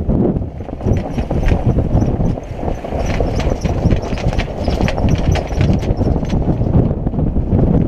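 Wind buffeting the microphone and water rushing past a sailboat's hull under way, with scattered sharp clicks from the deck gear.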